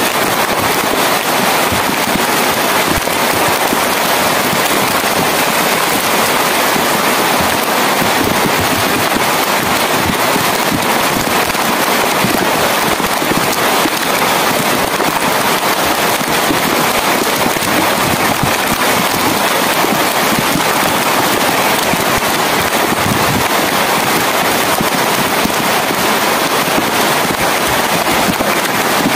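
Steady rain falling, a dense patter of drops that does not let up.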